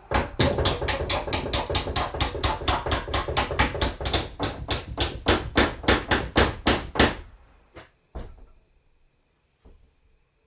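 Hammer blows in a fast, even run, about four a second for some seven seconds, then stopping; a couple of lighter knocks follow.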